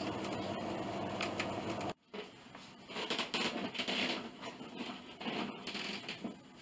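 A steady machine hum for about two seconds, cut off abruptly. Then irregular soft crackling and hissing from water heating in a metal loaf pan on a hot plate.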